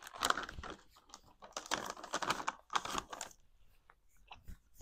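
Plastic candy bag crinkling in short crackly bursts as a peach ring is taken out, for about the first three seconds.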